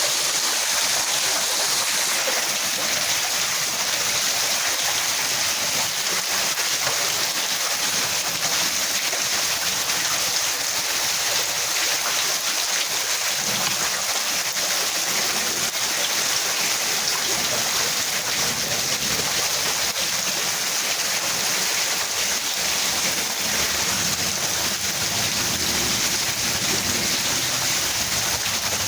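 Steady, unbroken rush of storm water during a flood, a constant hiss with no breaks.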